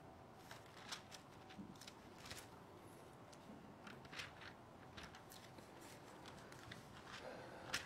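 Thin Bible pages being leafed through by hand: soft, scattered rustles and flicks of paper, the loudest near the end.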